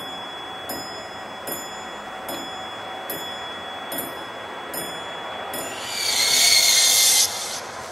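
Spooky sound-effect soundtrack from a Halloween window display: a slow, even ticking about every three-quarters of a second over a thin high tone, then a loud high hissing burst about six seconds in that cuts off abruptly a second later.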